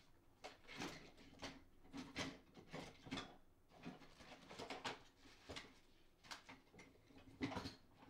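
Faint rummaging: irregular short knocks, clicks and rustles of things being moved around while searching for a tub of Krytox lubricant.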